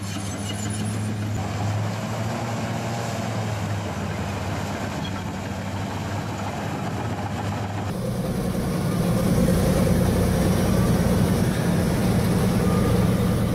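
Large diesel engine of heavy earth-moving machinery running steadily under load. About eight seconds in the sound changes abruptly and becomes louder and deeper.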